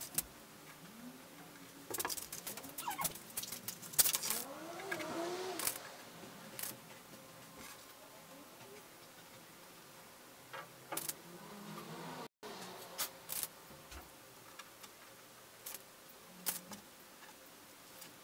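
Stretch fabric being handled on a wooden table: soft rustling with scattered light clicks and taps, in clusters about two to six seconds in and again now and then later.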